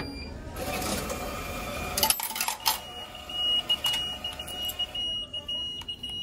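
Japanese meal-ticket vending machine paying out change after the change button is pressed: coins clatter down into the metal change tray about two seconds in. A steady high beep then sounds from about three seconds in while the coins are picked out.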